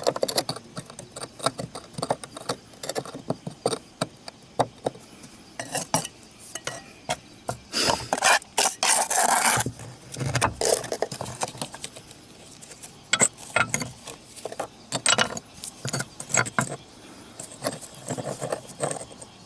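Ceramic roof tiles being handled and worked: a run of sharp clinks and knocks mixed with scraping, with a longer scrape about eight to ten seconds in.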